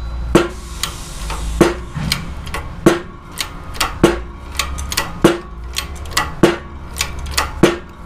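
Shop press being worked in steady strokes to drive a new wheel bearing into a steering knuckle: a sharp metallic clank with a brief ring about every 1.2 seconds, with lighter clicks in between.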